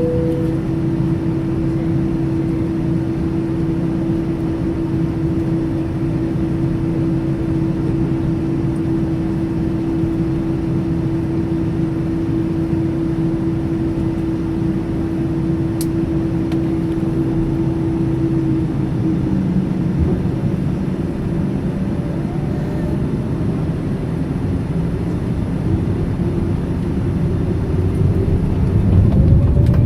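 Boeing 787 airliner's jet engines running with a steady low rumble and a steady hum, the hum dropping away about two-thirds through. Near the end a rising whine comes in and the rumble grows louder as engine power increases.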